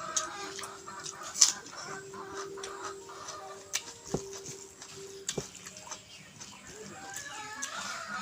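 Chickens clucking in the background, with a few sharp clicks, the loudest about a second and a half in, and a steady low hum through the first five seconds.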